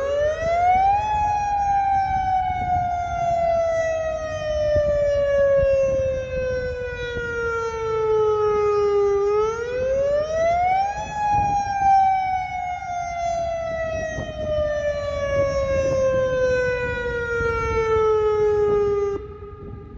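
Federal Signal Modulator 8032B electronic warning siren sounding its wail tone in a system test. The tone rises quickly, then falls slowly over about eight seconds. It does this twice and cuts off shortly before the end.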